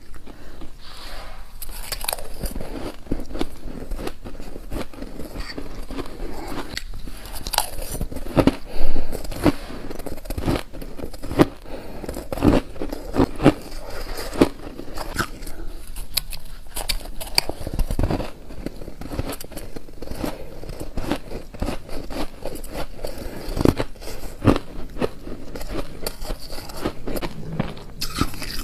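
Shaved ice being bitten and chewed by mouthfuls: a steady run of crisp, close crunches, the loudest about nine seconds in.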